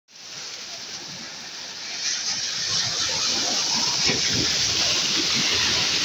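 Sea waves breaking and washing up the shore, a steady rush of surf that grows louder about two seconds in.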